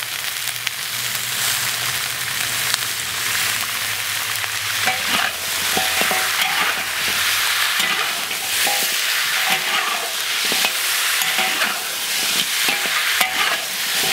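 Lamb trotters stir-frying in a hot wok in caramelized sugar and cooking wine: a steady sizzle, with the metal spatula repeatedly scraping and turning the pieces.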